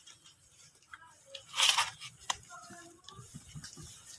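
Newborn puppies and their mother shifting against the cardboard of their box: faint rustling and scuffing, a brief louder scrape about halfway and a sharp click just after.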